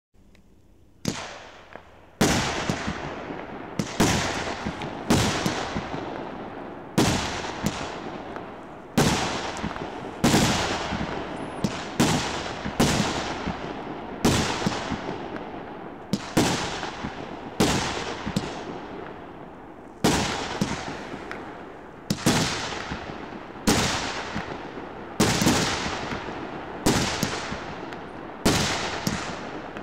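100-shot 1.5-inch consumer fireworks cake firing in a steady run, about one sharp bang a second after a weaker first shot about a second in. Each bang trails off in a fading crackle from the bursting stars.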